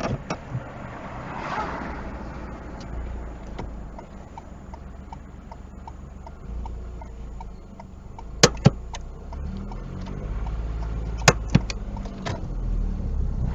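Car running on the road, heard from inside: a steady low engine and road rumble. For a few seconds a light ticking repeats about three times a second, and later there are two pairs of sharp clicks.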